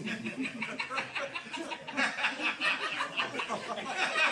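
Laughter, rapid breathy chuckling.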